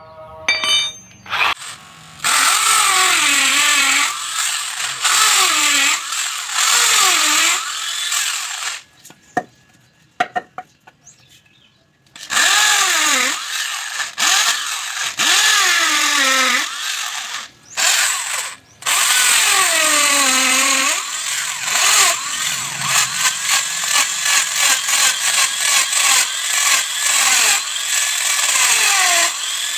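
Electric hand drill mounted in a homemade mortising jig, boring a mortise into a wooden block. The motor's pitch sags and recovers again and again as the bit is pushed into the wood. It stops for a few seconds about nine seconds in, then starts again.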